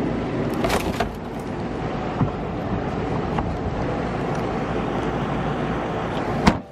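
Steady rushing wind noise on the microphone, with a few clicks and knocks from a plastic wheelie-bin lid being lifted and a car's fender liner dropped in; the loudest, a sharp knock, comes near the end.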